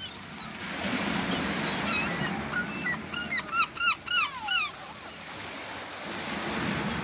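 Herring gulls calling over waves washing on the shore: a few scattered calls, then a quick run of about six loud, arched calls in the middle, the last one falling away.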